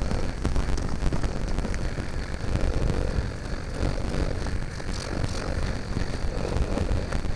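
Steady low rumble with hiss over it and faint crackling clicks, recorded by a GoPro Hero5 Black's built-in microphone: the audio fault the owner is complaining about on the new camera.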